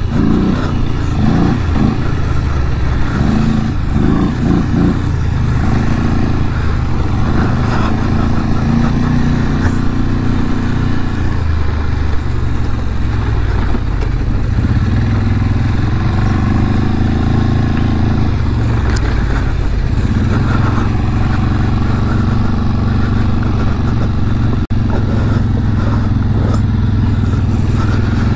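850 cc Polaris ATV's engine running under the rider, its pitch rising and falling as the throttle opens and eases on a rough dirt trail. Loudness dips briefly about 25 seconds in.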